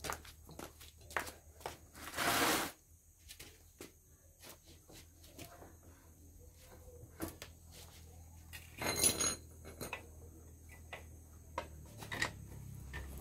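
Light knocks, clicks and scrapes of a motorcycle rear wheel and its sprocket being handled and fitted back into the swingarm, with two louder half-second swishes about two seconds and nine seconds in, over a low steady hum.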